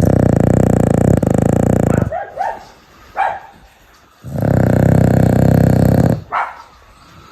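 Sleeping dog snoring loudly: two long rattling snores of about two seconds each, about four seconds apart, each followed by short, higher, wheezy breaths.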